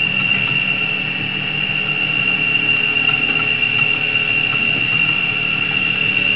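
Steady mechanical whirr with hiss and a constant high-pitched whine.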